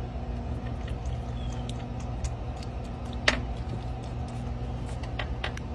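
Kinkajou licking and smacking at a lollipop: scattered small wet clicks, one sharper about three seconds in, over a steady low hum.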